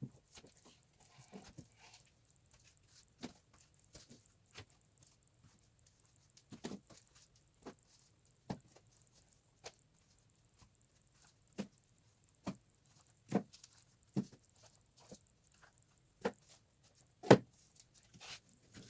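Irregular light knocks and clacks of objects being handled and set down while tidying a desk, about one every second or so, the loudest a little before the end.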